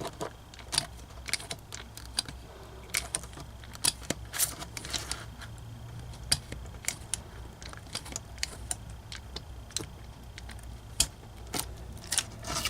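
Self-adjusting wire stripper clicking and snapping as its handles are squeezed and released again and again on a 14 AWG wire. The jaws take several tries because the wire's slippery plastic film makes them slip. A faint steady hum sits underneath.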